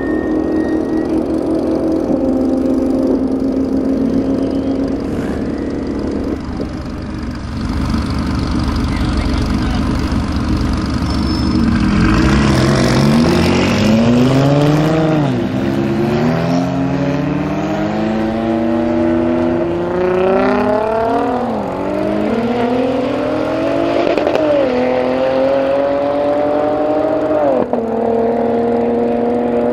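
Nissan GT-R R35 twin-turbo V6 and a Porsche 911 accelerating hard from a standing start in a drag race. After a steady engine note at the start, the engine pitch climbs and drops back at each of about four upshifts in the second half.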